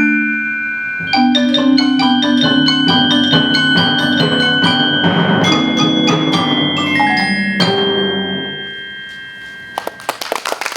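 Percussion ensemble on mallet instruments, marimba with high bell-like keyboard notes ringing above, playing a closing passage of fast repeated strokes that thins out and rings away about 8 s in. Applause breaks out near the end.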